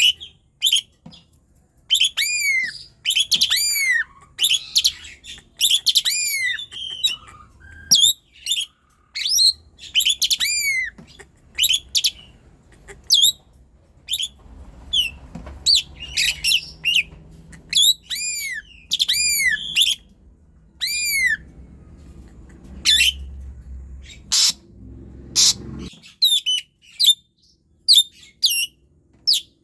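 Asian pied starling (jalak suren) singing in full voice: a long run of loud, sharp whistled notes that arch up and down in pitch, delivered in quick clusters with short gaps. A faint low hum sits underneath through the middle stretch.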